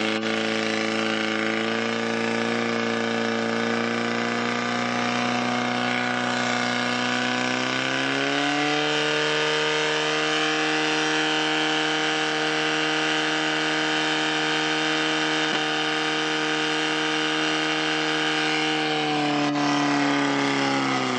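Portable fire pump's engine running hard and steady while it pumps water out to the hose lines. About eight seconds in it revs up to a higher pitch, holds there, and drops away again near the end.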